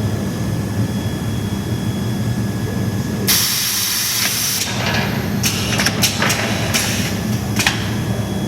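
Machinery running with a steady low hum, a burst of hissing about three seconds in that lasts just over a second, then several sharp clicks.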